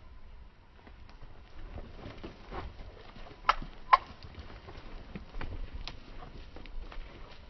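Cattle hooves stepping and shuffling on soft dirt as several head walk off, an irregular patter of small taps, with two sharp clicks a little past halfway.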